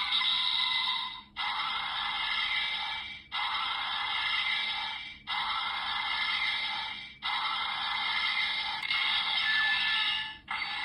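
Electronic sound effects from a toy sword's small built-in speaker, thin and tinny with no bass. A new effect starts abruptly about every two seconds and fades away before the next.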